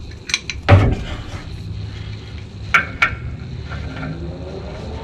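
Steel tools clanking and clinking as a jack handle is fitted over a wrench as a cheater bar on a tight brake caliper bracket bolt: one loud clank about three-quarters of a second in, then two sharp metallic clinks around three seconds in.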